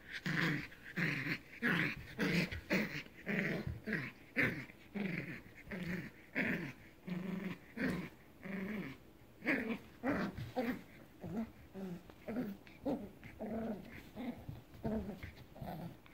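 Eight-week-old puppy play-growling during tug-of-war with a plush toy: short growls in quick succession, about two a second, getting fainter in the second half.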